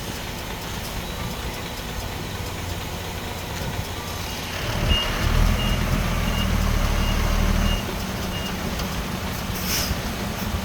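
Heavy diesel engine running on a site where a bulldozer loads dump trucks, growing louder about halfway through as a reversing alarm sounds a string of about seven short high beeps. A brief hiss near the end.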